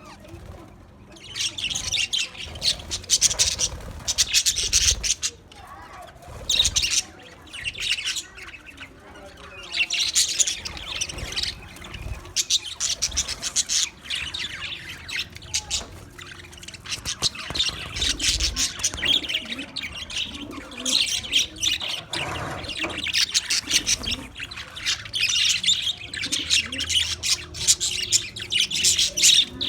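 Budgerigars chattering and warbling: rapid, high chirps in bouts separated by short lulls, busiest in the second half.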